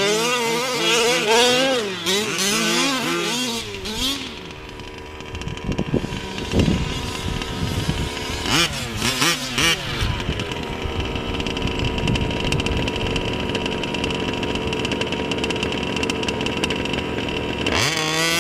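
Small two-stroke petrol engine of a Losi 5ive-T large-scale RC truck revving up and down in quick bursts, with another short rev about halfway. It then settles into a steady note for several seconds before revving again near the end.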